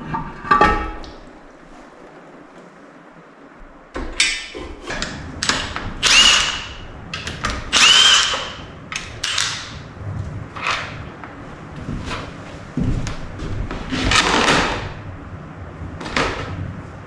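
A handheld power tool, drill or driver type, runs in a dozen or so short bursts, some winding up in pitch before stopping, with a metal clank near the start.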